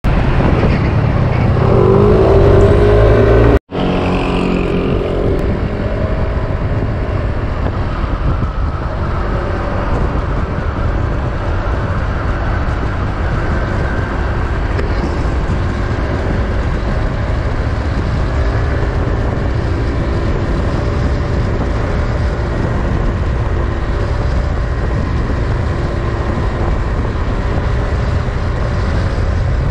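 PGO Tigra 150 scooter's single-cylinder engine running at speed, mixed with low wind rumble. For the first few seconds it rises in pitch as it accelerates. After a brief dropout about three and a half seconds in, it holds a steady cruise.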